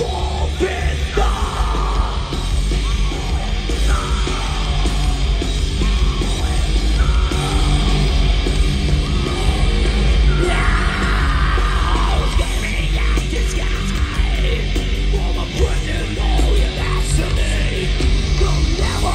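Live heavy metal band playing loudly through a festival PA, with yelling over the distorted music, heard from inside the crowd.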